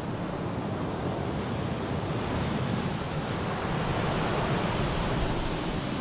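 A steady rushing noise, like a soundtrack ambience, swelling slowly and loudest in the second half.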